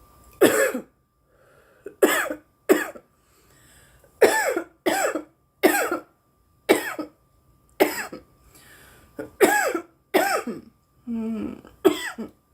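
A young woman coughing repeatedly: about a dozen short, sharp coughs, some coming in quick pairs, with brief pauses between.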